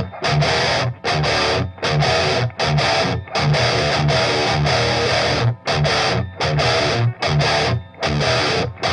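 Distorted electric guitar riffing through a Line 6 Helix amp modeller and cab impulse response, played back through a 15-inch powered monitor. The chords are choppy, broken by short stops every half second to a second.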